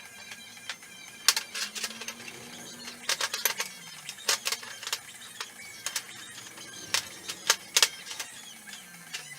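Irregular clinks and taps of hard parts being handled and knocked together, in short clusters, typical of metal pieces for the grill stand being fitted.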